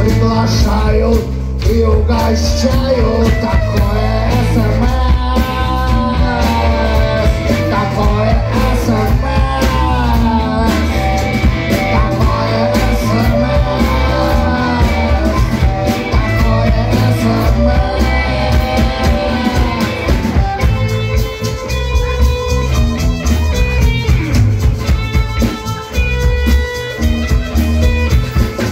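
Live rock band playing a bluesy number: drums, bass, electric guitars and harmonica, with a lead melody bending up and down through most of it and steadier held notes near the end.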